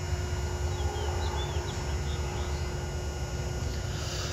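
Steady low rumble of highway traffic, with a few faint, short bird chirps between one and two seconds in.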